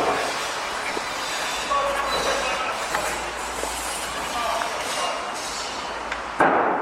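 Construction-site din: a steady clatter with short high metallic squeals and clicks, and a loud bang near the end, after which it quietens.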